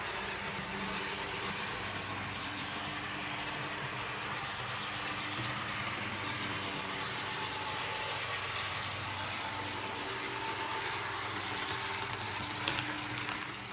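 Hobbytown of Boston HO-scale four-axle model locomotive power chassis running steadily on track: its electric motor and gear drive give a steady hum with a hiss over it. The chassis is running smoothly, with no more short circuits.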